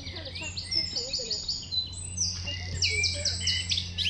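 A songbird singing: quick series of high, repeated notes in two phrases, over a low steady hum.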